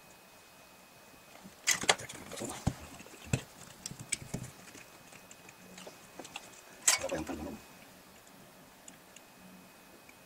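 Clicks, knocks and rattles of a circuit board being handled and turned in a plastic PCB-holder clamp. There is a cluster of sharp clicks about two to four seconds in and a louder clatter about seven seconds in.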